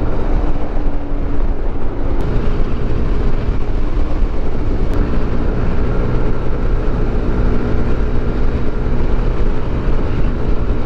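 Yamaha NMAX 155 scooter's single-cylinder engine running steadily at cruising speed, under a constant rush of wind on the microphone.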